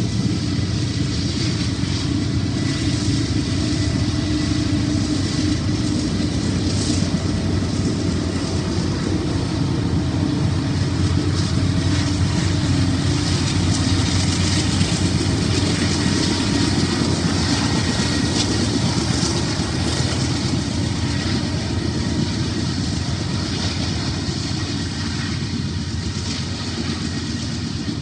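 BNSF freight train rolling past with its diesel locomotives working: a steady low rumble with a faint hum on top, easing slightly near the end.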